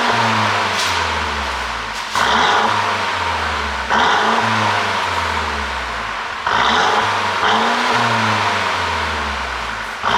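Mercedes-Benz W205 C200's turbocharged four-cylinder petrol engine being blipped repeatedly, a rev surge every two to three seconds with the revs falling back after each. A few sharp pops from the exhaust on the overrun, as produced by its pop-and-crackle ECU tune.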